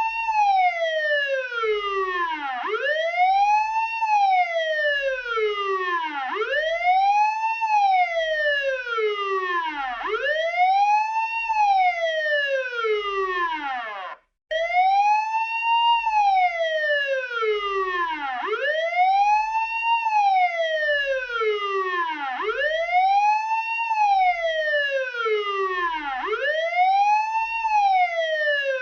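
Police car siren on a wail: a tone rich in overtones that rises quickly and falls more slowly, repeating about every three and a half to four seconds. About halfway through it cuts out for a split second and comes back in mid-rise.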